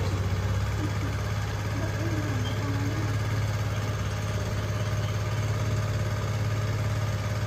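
Small single-cylinder scooter engine idling steadily, a Hero Maestro, while the rider waits to pull away.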